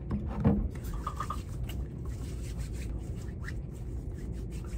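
Hands rubbing hand sanitizer together close to the microphone: a steady low rubbing and rustling, with a short bump about half a second in.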